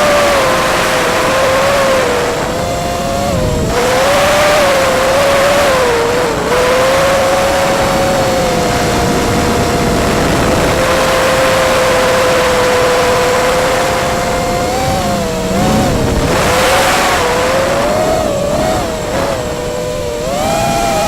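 Motors and propellers of an FPV model aircraft, a whine whose pitch holds steady for several seconds and then wavers up and down with the throttle, over rushing wind noise.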